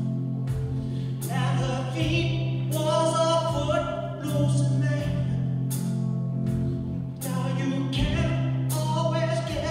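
Mixed choir of men's and women's voices singing, over a steady low note held underneath.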